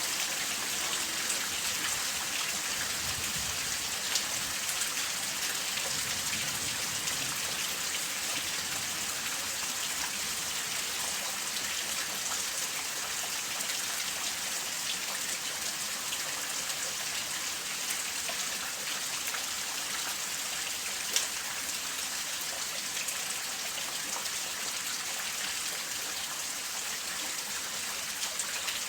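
Steady rain falling, an even hiss with a few louder individual drops standing out now and then.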